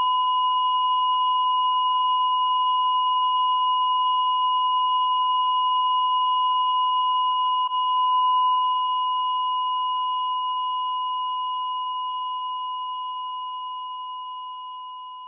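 A single steady, high electronic tone, one unbroken note that holds level for about eight seconds and then fades slowly away.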